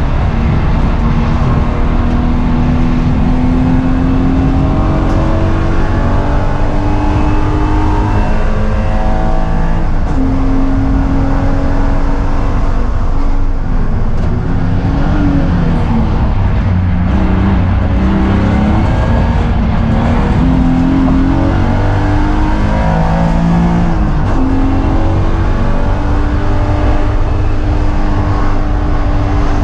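BMW E36 M3's straight-six engine heard from inside the cabin while driven hard on track. Its pitch climbs under throttle, drops at gear changes, and dips and rises again several times, most of all around the middle.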